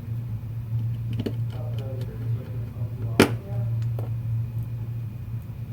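Steady low electrical hum, with small clicks from handling phone parts and one sharp click about three seconds in.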